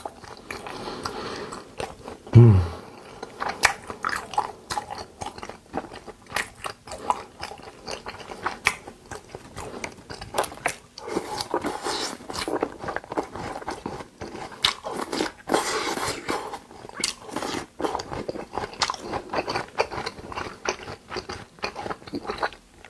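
Close-miked eating of Korean raw beef dishes (yukhoe): continual wet chewing and biting mouth sounds. About two and a half seconds in comes one loud, short, low sound that drops in pitch.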